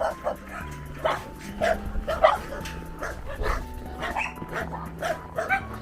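Several dogs barking and yipping in short, scattered bursts while squabbling over food, with background music of held low notes underneath.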